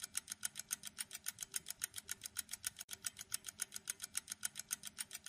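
Countdown timer sound effect ticking rapidly and evenly, about five ticks a second, marking the answer time running out.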